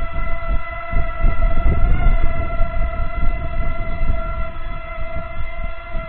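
Parrot Mambo mini quadcopter hovering, its small propeller motors giving a steady high whine over an uneven low rumble. The pitch wavers slightly about two seconds in.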